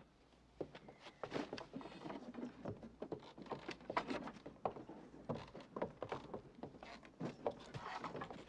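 Footsteps and irregular knocks and thuds on wooden boards, a steady string of short clicks and clatter.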